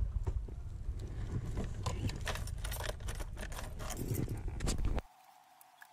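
Honda scooter's small engine running at low speed, with many sharp clicks and rattles from the bike jolting over a rough dirt path. It stops abruptly about five seconds in, leaving only a faint hush.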